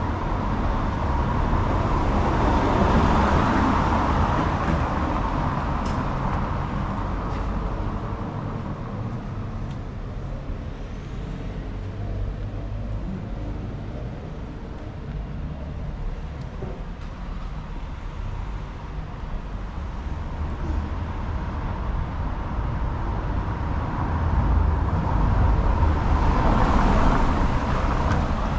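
Road traffic on a town street: one vehicle passes a few seconds in and another near the end, with a steady low traffic rumble between.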